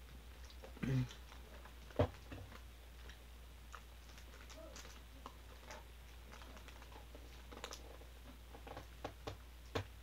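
Scattered faint clicks and taps over a steady low hum, with a short low voice-like sound about a second in and a sharp knock about two seconds in.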